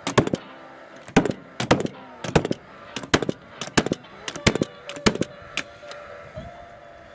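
Cordless fuel-cell framing nailer firing nail after nail: about a dozen sharp shots, roughly two a second, stopping a little over two-thirds of the way through.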